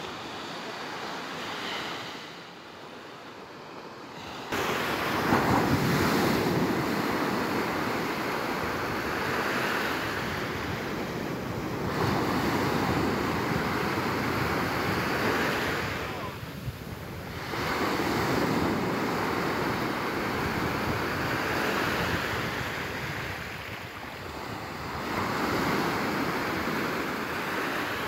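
Small Black Sea waves breaking and washing up a sandy beach, the surf swelling and falling back every few seconds.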